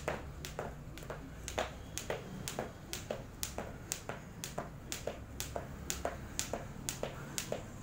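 Jump rope skipping: sharp taps in a steady rhythm, about two a second, as the rope strikes the floor and the skipper lands.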